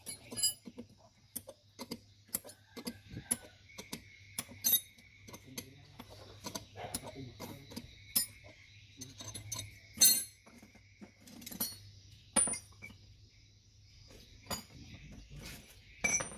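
Metal tools and alternator parts clinking and tapping irregularly on a workbench, with a few sharper knocks, over a steady low hum.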